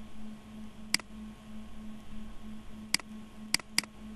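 Computer mouse button clicking four times, single sharp clicks at uneven intervals, the last two close together, over a steady low hum.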